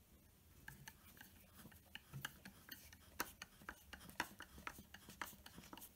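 Faint, irregular clicks and light scraping of a metal tool working on a submersible pump motor's shaft, holding the shaft while its nut is undone.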